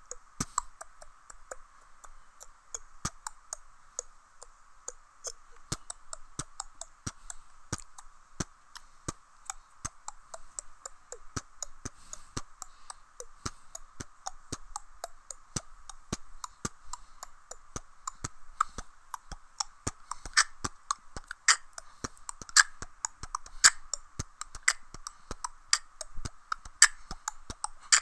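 A person beatboxing: a fast stream of mouth clicks and percussive hits. The hits grow louder and sharper about twenty seconds in.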